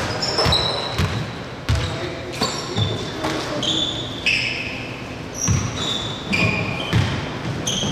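Basketball game in a large gym: sneakers squeaking sharply on the court and a basketball bouncing at irregular intervals, all echoing in the hall, with players' voices.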